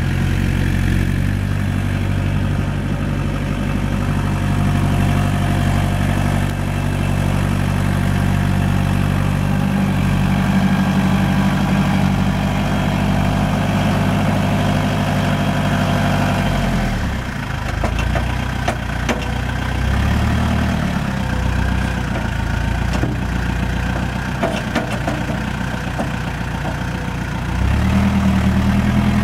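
Compact tractor engine running at raised revs while its front loader lifts a bucket. The revs drop about halfway through, run lower and uneven for a while, then rise again near the end.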